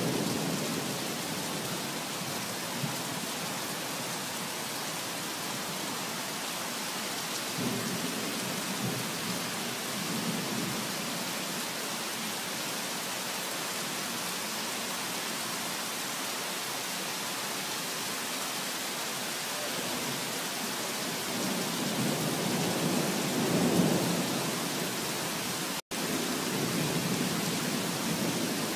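Heavy rain falling on a flooded street, a steady hiss, with a low rumble swelling about three quarters of the way through. The sound cuts out for an instant near the end.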